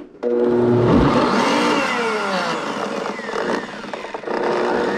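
Blendtec countertop blender starting up and running, churning a thick load of vegetable juicer pulp and juice. The motor spins up with a rising whine about a second in, then runs loud and steady.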